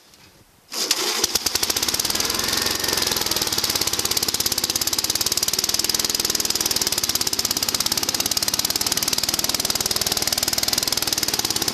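1963 Gravely L walk-behind tractor's single-cylinder engine catches about a second in on a cold start and runs with a rapid, even beat. The owner finds it odd, having thought it was running well a while earlier.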